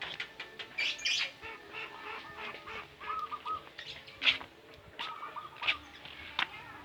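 Several caged birds calling together: short runs of looping whistled notes repeat a few times, with sharp high chirps and squawks in between, the loudest about four seconds in.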